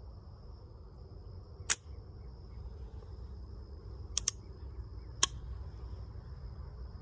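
Sharp clicks from a pistol being handled: one, then a quick pair a couple of seconds later, then one more, over a steady low hum and a faint high whine.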